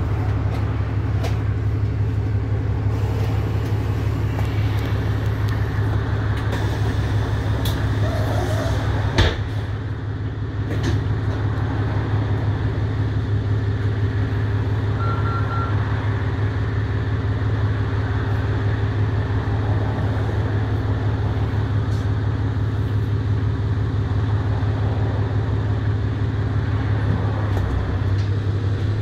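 Alexander Dennis Enviro400 MMC double-decker bus idling steadily at a stop, heard from inside the lower deck. A single sharp click about nine seconds in.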